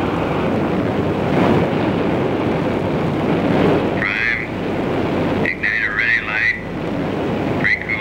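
Steady roar of aircraft in flight, carried over a radio link, broken twice by short bursts of garbled radio voice: once about four seconds in, and again for about a second around the middle.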